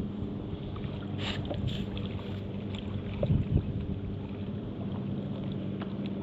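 Kayak on the water: water swishing and splashing against the hull over a steady low hum, with two brief splashes a little over a second in and a couple of dull knocks about three and a half seconds in.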